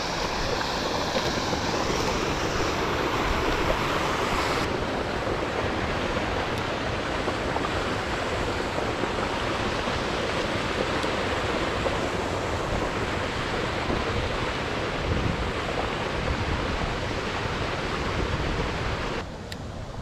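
Water rushing steadily out of a drainage pipe outfall and cascading down the bank into a creek; it falls away suddenly about a second before the end.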